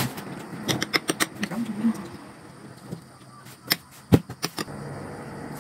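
Kitchen items being handled: a series of sharp clicks and knocks, clustered about a second in and again about four seconds in, the loudest a single knock just after four seconds.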